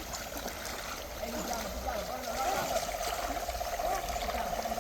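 Shallow river water running and trickling. About a second in, a fast pulsing trill at one steady pitch comes in. It wavers at first, then holds steady.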